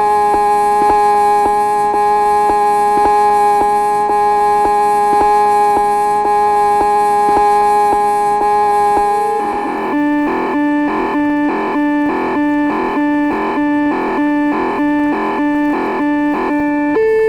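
Electronic sounds of the LEO computer. For about nine seconds, steady held tones with a regular ticking of about two ticks a second. Then it switches suddenly to a fast repeating pattern of alternating low and high beeps.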